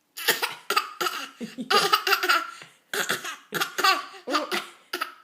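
A long string of short, forced fake coughs, about two a second, some with a laughing edge: pretend coughing, not a real cough.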